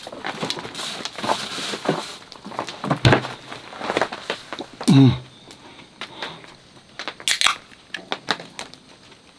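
Rummaging and clatter in a cooler box, with a knock and a short low falling squeak about halfway. Near the end a drink can is cracked open, a few sharp clicks and a quick fizz.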